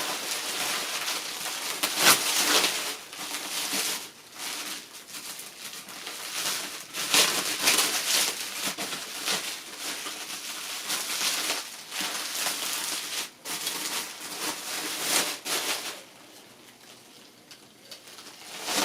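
Packing material rustling and crinkling in irregular bursts with sharp crackles as the typewriter is unwrapped by hand. It stops a few seconds before the end.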